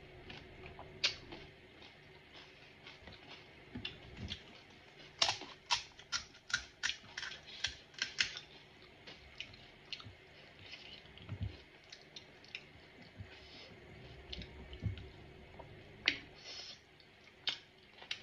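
Crisp pani puri shells crunching and cracking, with close-up chewing and mouth sounds. A quick run of sharp crackles comes about five seconds in, and scattered clicks and a few soft thuds of handling the food follow.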